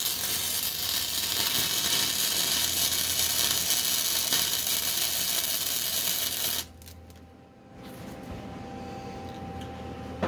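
Electric welding arc running steadily as a subframe connector is welded into a car's floor, cutting off suddenly about six and a half seconds in. A quieter low hum with a faint steady tone remains after.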